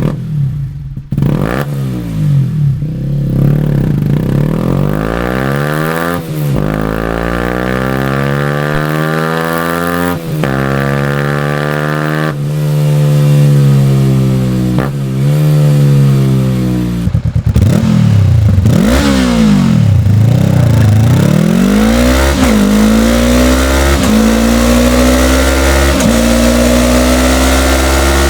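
Motorcycle engine revved repeatedly through its exhaust, the pitch rising and falling with each blip, with a few sharp cracks partway through. In the last third the note climbs slowly in pitch, broken by short dips.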